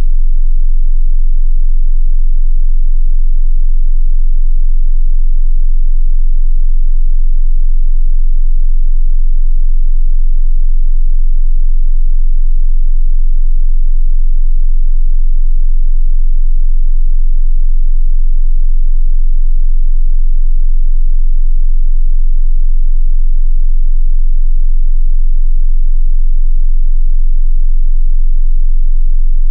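A steady 22 Hz sine-wave test tone: a single very deep, loud, unchanging bass tone used to test subwoofers.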